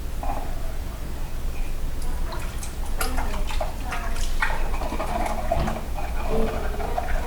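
Dishes washed by hand in a basin of standing water: water splashing and dripping, with scattered clicks and knocks of dishes, more frequent from about three seconds in.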